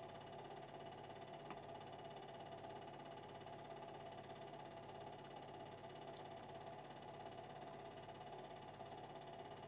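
Faint steady hum and hiss with no distinct sound events: the noise floor of a silent 8mm film transfer, which carries no recorded sound.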